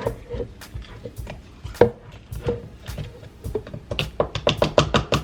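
Kitchenware being handled: a string of irregular knocks and clicks, coming quicker near the end.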